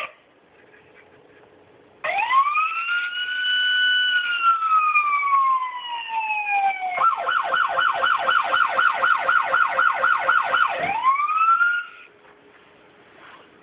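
Electronic police siren from a 1/18 diecast police car's built-in sound module. About two seconds in it rises into a wail, holds, and falls slowly, then switches to a fast yelp of about three to four sweeps a second. It swoops up once more and cuts off suddenly shortly before the end.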